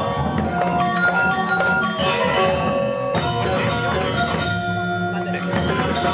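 Balinese gong kebyar gamelan playing, its bronze metallophones ringing with many held tones over dense strikes.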